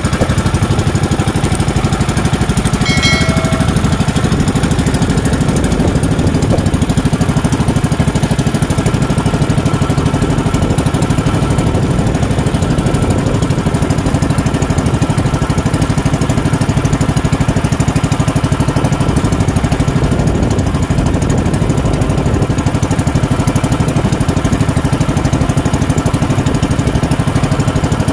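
Small engine of a motorized outrigger fishing boat running steadily under way, a rapid, even chugging pulse.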